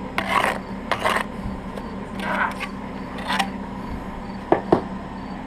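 Steel brick trowel scraping across mortar and brick in four short strokes about a second apart, then two sharp taps near the end.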